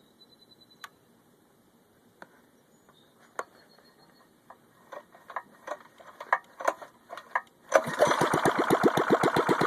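A few scattered clicks and knocks, then the mini bike's Briggs & Stratton 900 series single-cylinder OHV four-stroke engine starts near the end and runs steadily with an even, rapid beat.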